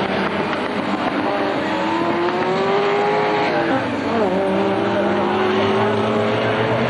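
1960s saloon racing cars driving past at racing speed, several engines running hard at once with their pitch climbing. The note dips sharply about four seconds in, then climbs again.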